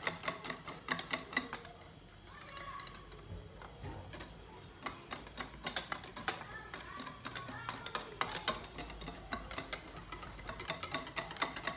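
Metal wire whisk beating thin batter in a glass bowl: fast clicking of the wires against the glass. It comes in several spurts, with a quieter pause about two to four seconds in.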